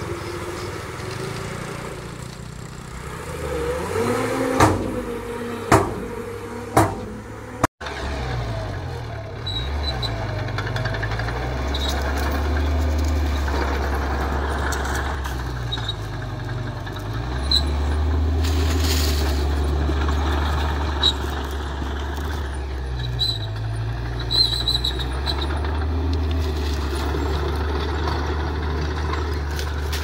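A dump truck's diesel engine running while its tipper bed unloads soil, with a few sharp knocks about four to seven seconds in. After a cut about eight seconds in, a small crawler bulldozer's diesel engine runs with a steady low drone and faint clinks as it pushes dirt.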